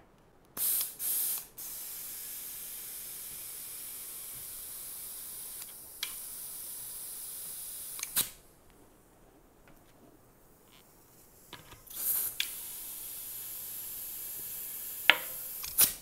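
Compressed air from an air compressor hissing into a tubeless tire to seat the bead. It comes in two bursts, a long one of about seven seconds and a shorter one of about four, with a few sharp snaps along the way.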